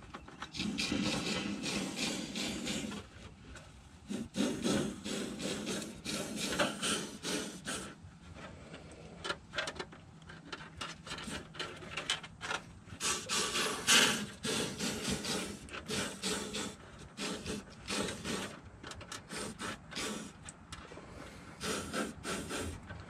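Aerosol can of Fluid Film spraying on and off through a long plastic extension hose inside a truck's rocker panel. The hose rubs and scrapes against the panel's holes as it is worked along.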